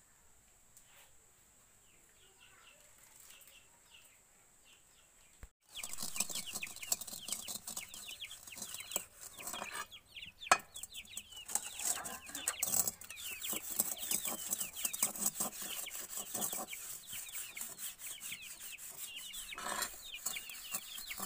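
Low, quiet background for the first few seconds, then a dense chorus of birds chirping in short, falling calls. Under it, a metal wok is scrubbed and knocked against the ground while being washed by hand, with one sharp metallic clank about ten seconds in.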